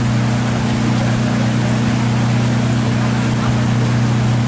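Boat engine running steadily, a low even drone, with the wash of water around the hull.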